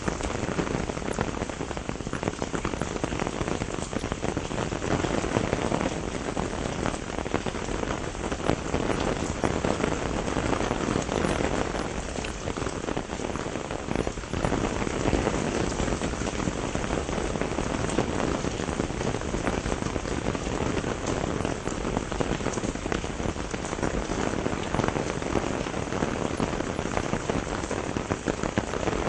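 Steady rain shower falling on leaves and surfaces: a continuous hiss with dense pattering drops.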